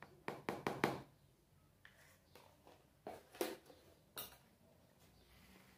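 A metal spoon tapping and clinking against a plastic tub of cake batter: a quick run of four taps in the first second, then a few scattered knocks. About four seconds in, a sharp click as a small plastic pot is set down on a table.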